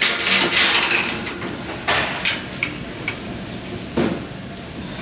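Hissing rush that fades over the first second and a half, then a few sharp knocks and clicks of parts being handled while a clogged dishwasher drain is cleared.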